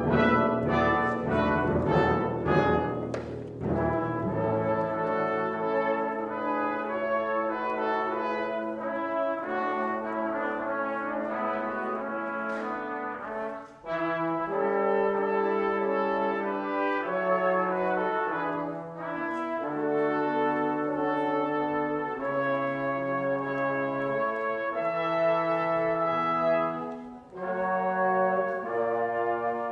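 Brass ensemble playing a hymn arrangement in sustained chords, with trumpets, horns and trombones. The first few seconds are loud and full, then the playing settles softer, with brief breaks about halfway through and near the end.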